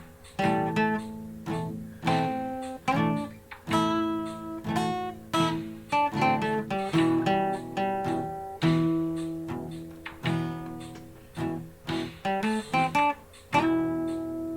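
Acoustic guitar playing a blues-rock instrumental passage, with strummed chords and picked notes that ring out.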